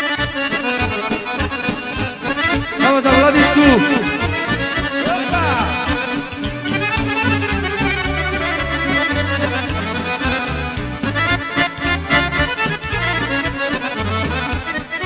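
Serbian folk band playing an instrumental introduction: accordion leads the melody over a steady bass line and drum beat.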